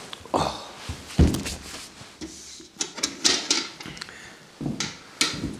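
Irregular knocks and clatter of a small metal bucket and gear being handled by a stove, with a heavy thump about a second in and a brief scraping spell around three seconds.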